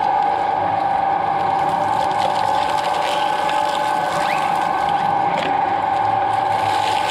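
Twin-shaft shredder running with a steady, high gear-and-motor whine while its cutter blades crack and tear coconut shells and husk, with scattered short cracks over the drone.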